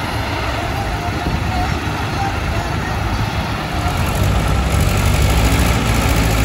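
Heavy diesel engines of Escorts Hydra cranes running at idle, a steady low rumble that grows louder about four seconds in.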